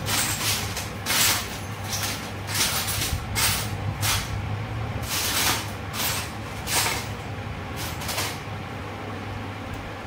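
Bajaj CT 100 gearbox gear cluster and shaft being handled by hand as a bush is worked onto the shaft: about ten short metallic scrapes and clinks at irregular intervals, stopping near the end, over a steady low hum.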